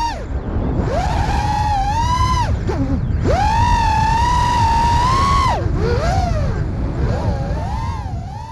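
FPV quadcopter motors whining, the pitch rising and falling with the throttle and dropping sharply twice, over a steady low rumble.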